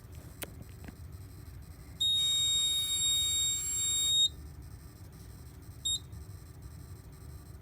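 Fire alarm control panel's piezo buzzer sounding one long, steady, high-pitched beep of about two seconds, then a short beep near the end. The panel is sounding as it goes into walk test mode.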